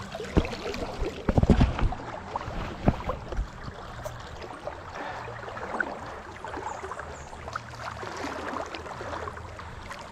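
River water moving and splashing around a wading angler, with several heavy low thumps in the first three seconds.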